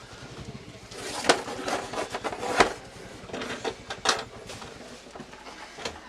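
Scattered knocks, clicks and clatter of tools and parts being handled, with sharper taps about one, two and a half and four seconds in.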